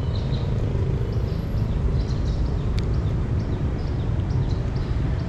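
A cat crunching and chewing dry kibble, a steady run of rapid small crunches.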